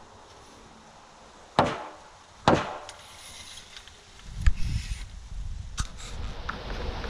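Two sharp knocks on wooden framing lumber, about a second apart. About four seconds in, a low wind rumble on the microphone rises.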